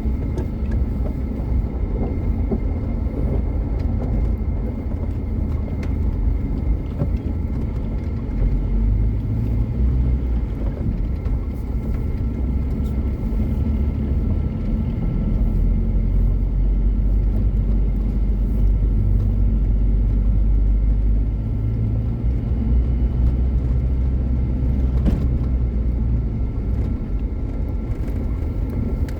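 Car driving: a steady low engine and road rumble with a faint steady high whine, the rumble swelling for a few seconds around the middle.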